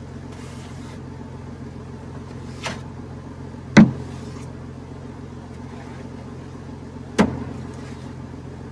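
Old Ford pickup's inline-six engine idling steadily, with three sharp knocks over it, the loudest about four seconds in and another near the end.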